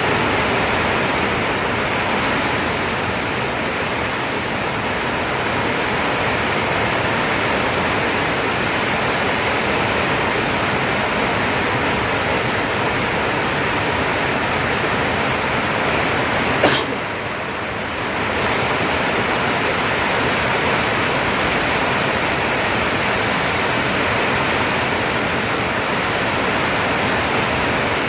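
Steady rushing noise, even and hiss-like, with a single sharp click about 17 seconds in.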